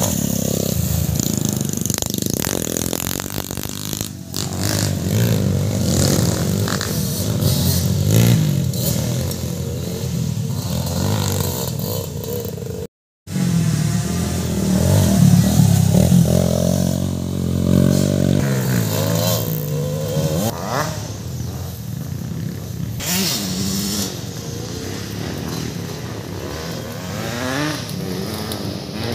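Dirt bike engines running on a track, their pitch rising and falling as they rev up and back off, with a brief gap about halfway through.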